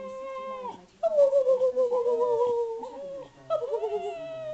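A spaniel howling and whining in long, wavering drawn-out notes. One held note stops just under a second in, a longer wobbling one runs from about one to three seconds, and a shorter one comes near the end.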